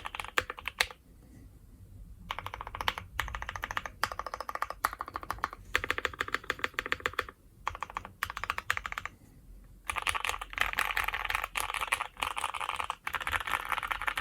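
Fast typing on a Keychron Q3 mechanical keyboard with linear Gateron Ink Black V1 switches, tape-modded with thin PE foam inside: dense runs of clacky keystrokes in bursts, with a few brief pauses.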